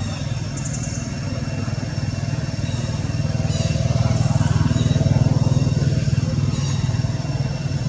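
A motor engine running, its pulsing rumble growing louder through the middle and easing off toward the end.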